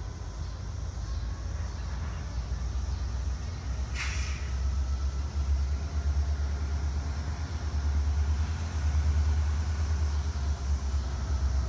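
EMD SD40-3 diesel-electric locomotive's 16-cylinder two-stroke engine running with a low, steady rumble that grows louder, with a brief hiss about four seconds in.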